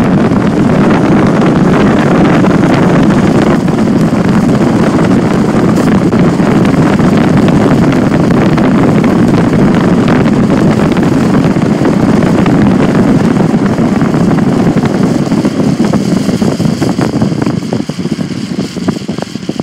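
Loud, steady wind and road rush from a moving car, heard through its open side window, dying down over the last couple of seconds as the car slows.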